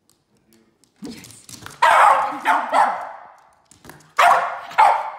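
Jack Russell terrier barking in play, about five loud barks in two groups after a quiet first second, ringing briefly in the room.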